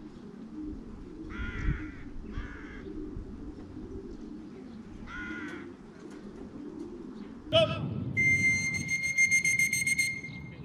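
Crows cawing: three harsh calls in the first half over a low outdoor rumble. About two-thirds of the way in comes a sudden loud knock. It is followed by a steady high tone with fast ticking for about two seconds, the loudest part.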